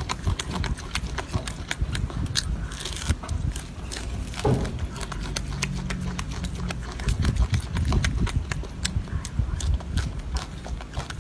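Golden snub-nosed monkey chewing a piece of orange close to the microphone: wet, irregular smacking and clicking of lips and teeth.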